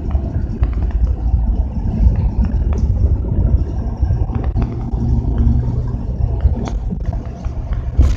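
Inside a moving 2008 Mercedes-Benz city bus: a steady low drone of engine and road noise, with light clicks and rattles throughout.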